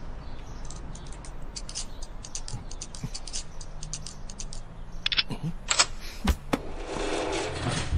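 Rapid little metallic clicks of a cylinder lock being picked with a wire pick and tension wire. About five seconds in come a few louder clacks, and near the end a rustling rattle, as the cable lock comes free.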